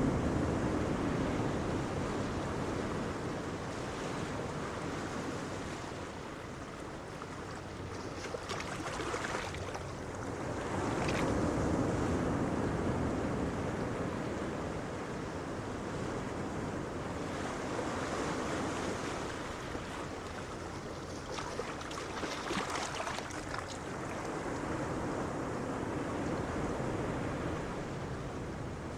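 Steady rushing noise, like surf or wind, that swells and eases slowly over several seconds, with a few brief crackly patches.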